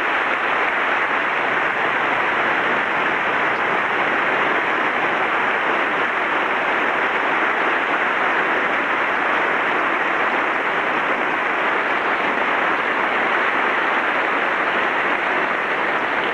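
Sustained applause from a large crowd, many people clapping at once, steady throughout.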